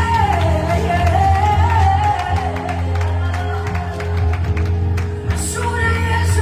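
Gospel worship song with a sung melody over a steady bass and sustained chords.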